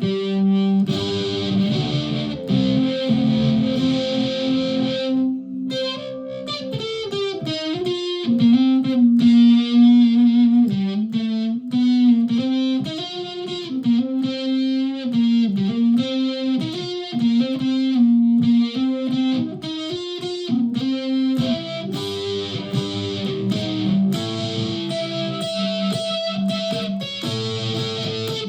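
Flight Centurion solid-body electric ukulele played through effects pedals and a Tonex One into a PA speaker. It starts with held chords, then a picked single-note melody from about six seconds in, and chords again from about twenty-one seconds.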